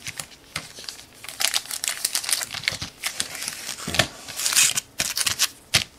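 Foil trading-card pack wrappers and cellophane packaging crinkling as they are handled, an irregular crackle that grows loudest about four to five seconds in.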